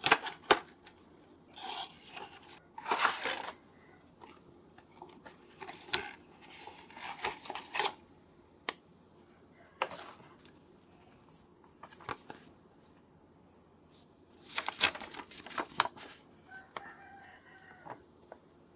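Packaging of a boxed action figure being handled and torn open: irregular crinkling and tearing rustles with sharp clicks, and a brief squeak near the end.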